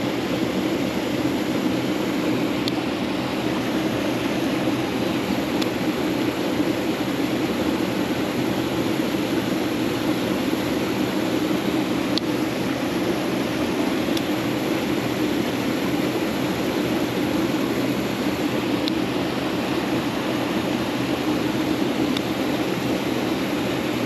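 Mountain stream water rushing steadily over rocks, a constant, unbroken flow sound, with a few faint ticks now and then.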